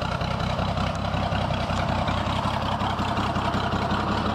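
Oliver 77 tractor's six-cylinder engine running steadily at a low, even speed.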